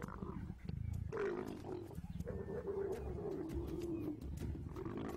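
A pair of leopards growling and snarling while mating: long, wavering growls, with a brief break partway through, that start about a second in and carry on to the end.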